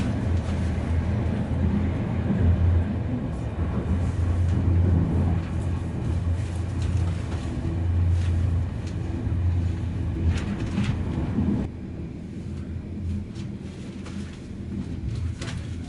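Passenger train running, heard from inside the carriage: a steady low rumble from the wheels on the rails with occasional clicks, while another train passes close alongside at the start. The rumble drops suddenly in level about twelve seconds in.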